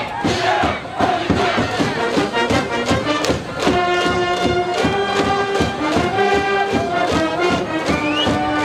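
A school brass band and cheering crowd perform a baseball fight song: a steady drum beat under massed chanting and shouting, with the brass coming in with long held notes about three seconds in.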